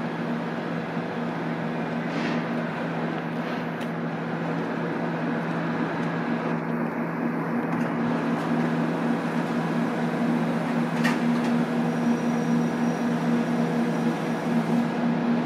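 Matterhorn Gotthard Bahn HGe 4/4 II electric rack locomotive hauling the Glacier Express at low speed, giving a steady electric hum with two held low tones that grows louder as it comes nearer. A single sharp click about eleven seconds in.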